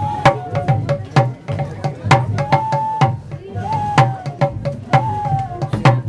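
Cane flute playing a held melody over a steady beat of drum strokes, the drum struck with a pair of sticks.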